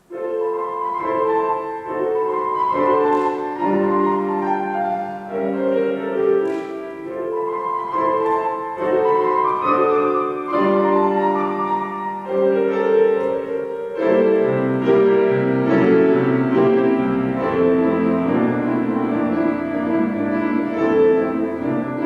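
Instrumental introduction to a children's song played on keyboard: held chords under a moving melody, with a lower bass line coming in about two-thirds of the way through.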